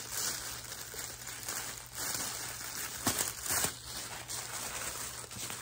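White wrapping paper rustling and crinkling as it is unfolded and pulled away by hand, with a few sharper crackles about three seconds in.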